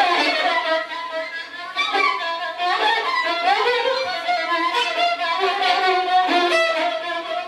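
Experimental music with violin-like bowed string tones, several pitches sliding and bending over one another.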